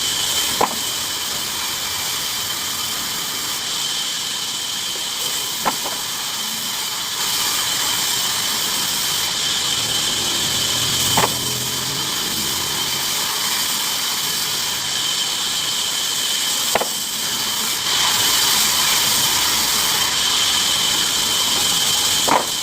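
Bandsaw machine running, a steady hiss with a constant high whine, and a short sharp click about every five and a half seconds.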